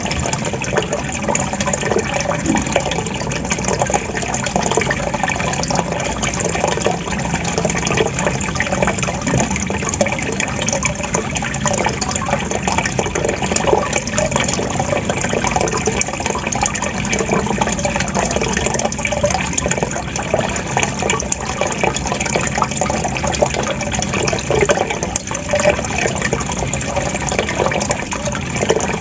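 Water gurgling and trickling, steady and unbroken, with a fine bubbling texture.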